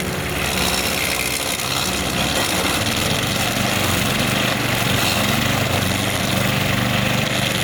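Buffalo T55 high-wheel string trimmer's 200cc engine running steadily under load while the spinning nylon line cuts through grass and brush, its engine note shifting slightly about three seconds in.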